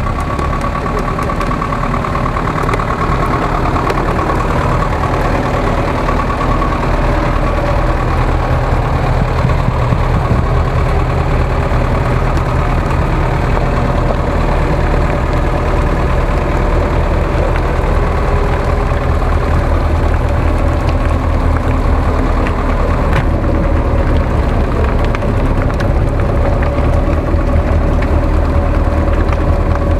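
GAZ-66 truck's engine running steadily at low speed, with a thin steady whine above it and a single click about 23 seconds in.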